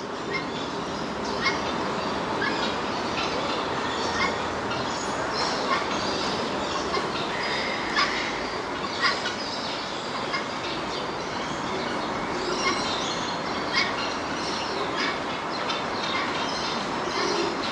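Steady outdoor city rumble, with many short bird chirps scattered through it.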